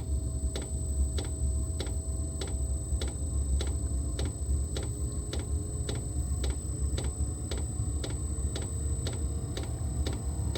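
Diesel heater's fuel dosing pump ticking evenly, about three clicks a second, over the steady low rumble of the heater's blower and burner. A faint whine creeps slowly upward as the fan picks up speed.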